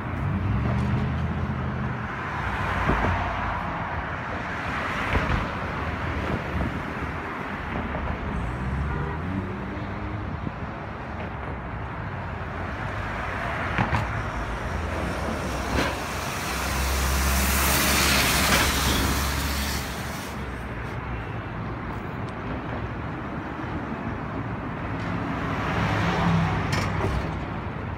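Road traffic going by on a street: a steady wash of tyre and engine noise with low engine hum coming and going, and one louder vehicle passing about two-thirds of the way through.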